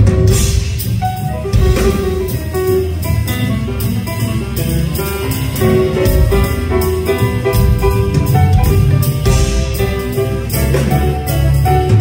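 Live band music: grand piano played with a drum kit and low bass underneath, the full band having just come in together.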